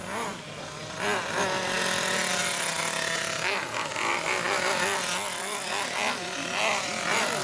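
Small nitro engine of a radio-controlled on-road car running and revving up and down as the car drives past, growing louder about a second in.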